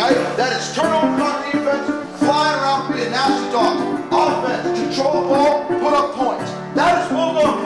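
Background music with a run of quick plucked notes.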